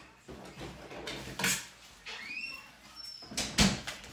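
Kitchen handling sounds as fish-fry coating is put into a container: a knock about a second and a half in and a louder one near the end. Between them comes a short rising squeak and a brief high peep.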